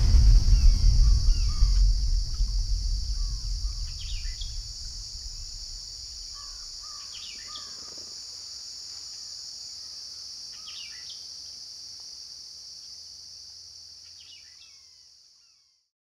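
Nature ambience: a steady high insect drone with scattered short bird chirps, under a low rumble that dies away over the first few seconds. It all fades out near the end.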